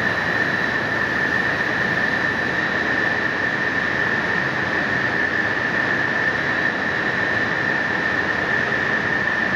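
Extrusion lamination plant for woven fabric running: a steady, even machinery noise with a constant high-pitched whine over it.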